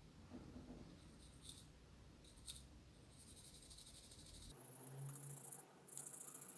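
Near silence: faint room tone with a couple of small, faint clicks.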